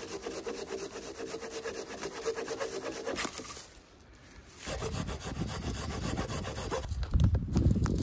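Hand saw cutting through dry deadwood with quick, even strokes for about three seconds. After a short pause come heavier, deeper crunching and knocks, loudest near the end.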